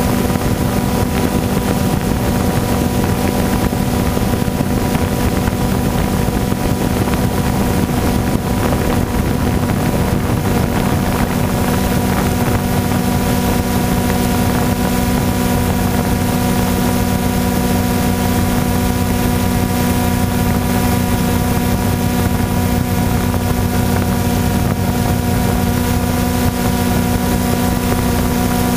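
Multirotor drone's motors and propellers humming steadily, a constant whine made of several held tones with no change in pitch.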